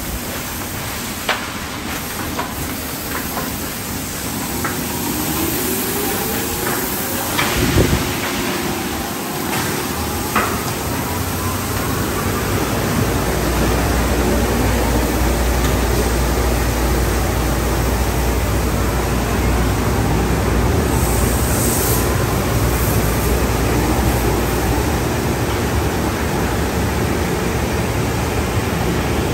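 Automatic car-wash tunnel running: water jets spraying and rotating cloth wrap and rocker brushes slapping over a car. A few sharp knocks and a slow rising whine come early. About halfway through it grows louder, with a steady low hum.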